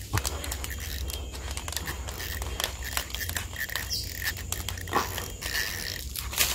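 Irregular clicks and rustles of a fishing rod and reel being handled while a hooked tambaqui is played, over a steady low rumble, with a few short faint high chirps.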